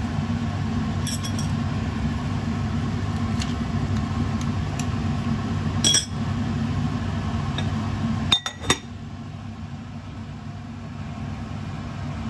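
Ceramic lid set onto a clay pot: a few sharp clinks, the loudest a close pair about two-thirds of the way through, over a steady low hum that is quieter after the lid goes on.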